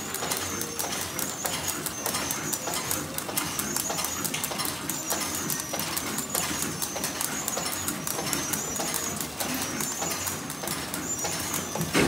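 PFM Hurricane packaging machine with an Etipack Whizzy labeller running: rapid, evenly repeating mechanical clicking under a high whine that comes and goes every second or two, with one louder knock near the end.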